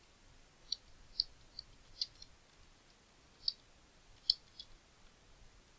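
Computer mouse clicking: about six short, sharp clicks at irregular intervals, with quiet room tone between.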